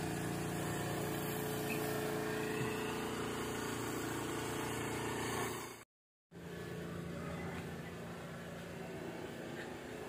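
A steady mechanical hum like an unseen engine idling. It breaks off in a brief silence about six seconds in, after which a quieter steady background noise carries on.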